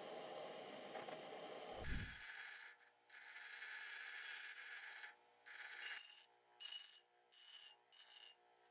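A gas torch flame hissing steadily, then, after a low thump about two seconds in, a bench grinder whining at a steady pitch as the edge of a steel disc is ground against its wheel. The grinder sound breaks off into short gaps several times near the end.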